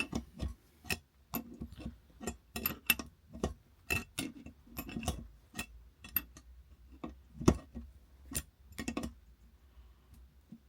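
Metal tools clicking and clinking as grips hold a toilet cistern bolt and a spanner tightens its nut: irregular sharp ticks, about two a second, with a couple of louder knocks in the second half.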